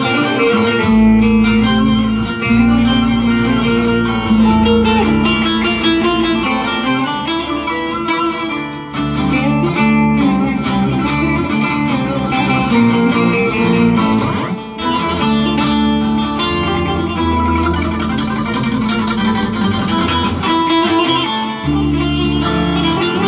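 Plucked string instrument music: bağlama (saz) playing an instrumental melody of many quick plucked notes over sustained low notes.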